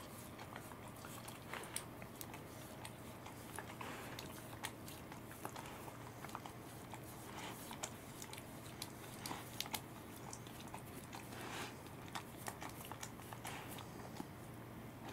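Welsh corgi chewing and smacking its lips as it eats fish from a hand: a string of soft, irregular wet clicks.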